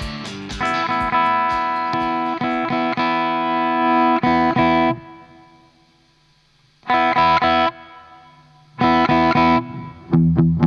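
Electric guitar played through an overdriven effects pedal: sustained ringing chords that die away after about five seconds, then two short chord stabs and a few picked low notes near the end.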